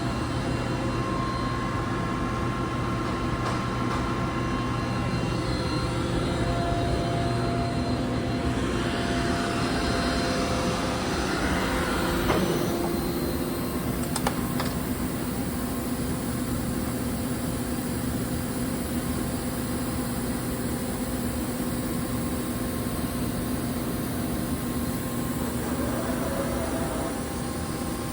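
Romi M-27 CNC lathe running under power with a steady machine hum. A hissing swell rises and falls from about a third of the way in, and two sharp clicks follow.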